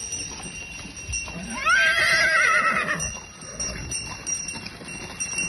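A horse whinnying once, about a second and a half in. The call rises sharply in pitch, then quavers for about a second before it fades.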